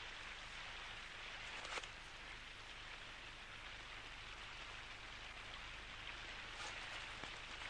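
Steady, even hiss like light rain, with one faint click about two seconds in.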